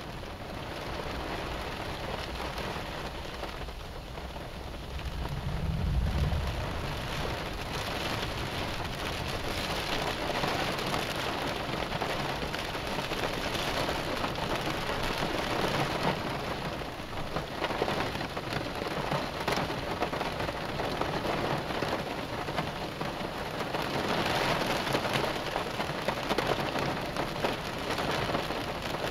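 Heavy rain pouring steadily on a car, swelling louder several times. A low rumble of thunder comes about six seconds in.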